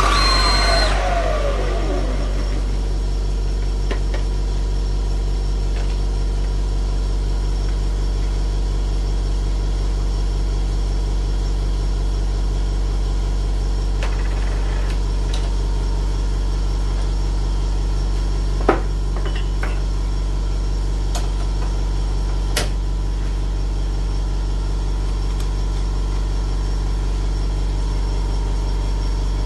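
Small CNC-converted lathe's spindle spinning down, its whine falling over the first two seconds, then the stopped machine humming steadily. A sharp click about 19 seconds in, and a fainter one a few seconds later.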